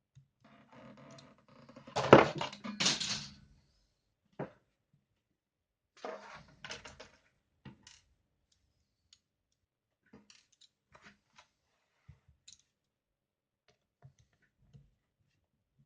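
Hand tools and small laptop parts handled on a work surface while the screen's screws are taken out: a clattering cluster of knocks and rattles in the first few seconds, another shorter one a few seconds later, then scattered light clicks.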